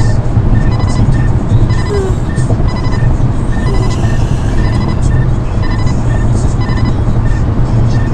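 Radar detectors beeping a repeated alert, about two short beeps a second, as they pick up Ka-band radar, over steady road and engine noise inside a moving car's cabin.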